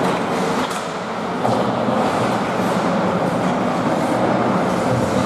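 Steady rumbling noise of an ice rink during a hockey game, with a couple of faint sharp sounds about a second in.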